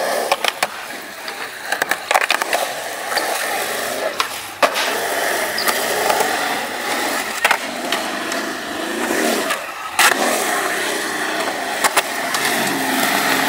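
Skateboard wheels rolling steadily over smooth concrete, with scattered sharp clacks of the board and a couple of louder hits, the loudest about ten seconds in.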